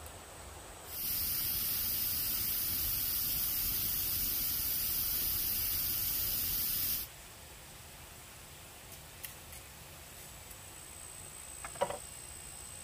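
Wood fire hissing steadily, starting about a second in and cutting off suddenly some six seconds later. A light knock near the end.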